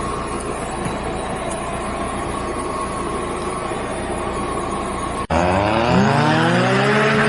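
Suzuki Samurai's BMW M42 1.8-litre four-cylinder engine running steadily. About five seconds in, after a sudden break, the engine revs up in a rising pitch and holds at higher revs.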